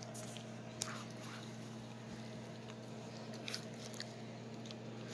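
Boxer puppy mouthing and chewing a pacifier toy on bedding. Faint wet clicks and rustles, the sharpest about a second in and again around three and a half seconds, over a steady low hum.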